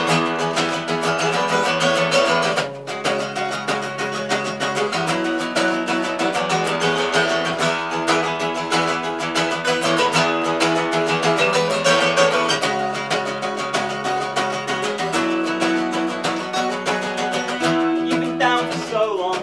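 Two acoustic guitars strummed together in a steady, fast rhythm, an instrumental break of an acoustic punk song, changing chords every few seconds, with a quick pitch slide near the end.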